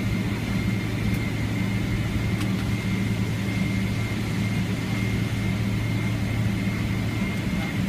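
Airliner cabin noise as the jet rolls along the ground after landing: a steady low drone with a faint constant high whine.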